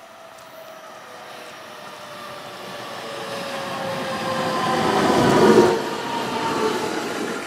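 JR West 521 series AC/DC electric multiple unit, two coupled sets, running in along the platform. It grows louder until the front passes about five and a half seconds in, then settles. A motor whine with several tones falls steadily in pitch as the train slows, over the rumble of its wheels.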